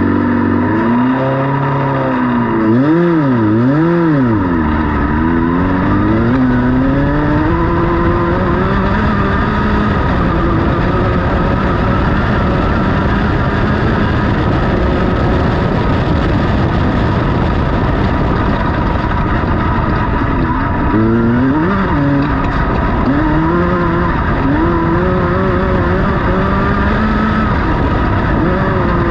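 Class 10 off-road race car's engine heard from inside the cockpit, running hard, its pitch rising and falling as the driver works the throttle and gears. Two sharp quick dips and climbs in revs come about three seconds in, and again about twenty-one seconds in.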